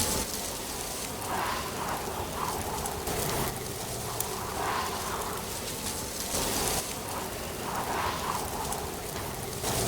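Ambience of wind and rustling leaves: a steady hiss that swells and eases every second or so, with a few sharp clicks, one standing out about four seconds in.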